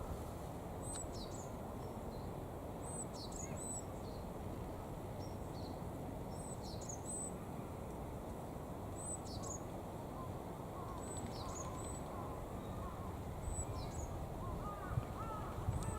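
Japanese tits calling: short, high-pitched, down-slurred notes, repeated every second or two in small groups, over a steady low background hum.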